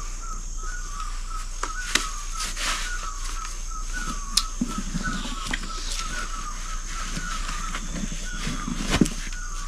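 A bird calling over and over in short quick notes, a few a second, with a few sharp clicks in between.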